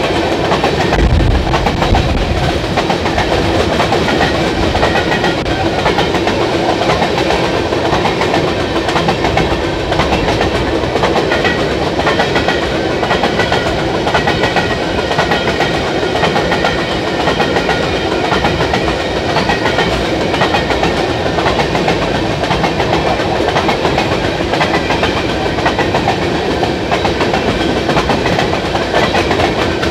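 Freight train of covered hopper cars rolling past, steel wheels clicking and clattering on the rails over a steady rumble.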